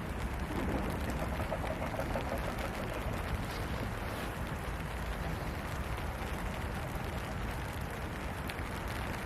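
Steady rain falling, an even, unbroken hiss with a deep low rumble beneath it. A faint wavering tone sounds briefly in the first couple of seconds.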